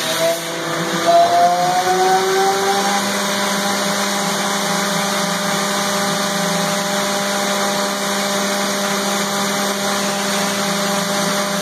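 A Kiwa KH-45G horizontal machining center's spindle speeding up with a rising whine for the first few seconds, then running steadily at speed over a steady hiss of coolant spray.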